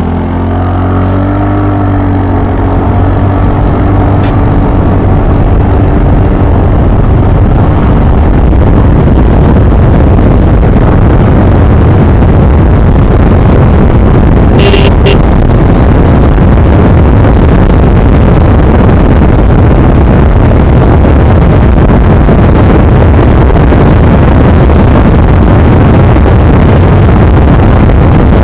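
TVS NTORQ 125 scooter's single-cylinder engine accelerating hard from low speed toward its top speed, its pitch climbing over the first few seconds. The engine then sinks into a loud, steady rush of wind and road noise on the handlebar-mounted camera, with a couple of brief clicks about halfway.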